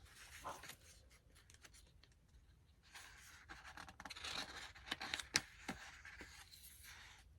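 Paper pages of an album photobook being turned and handled: soft rustling with scattered sharp clicks, busier in the second half.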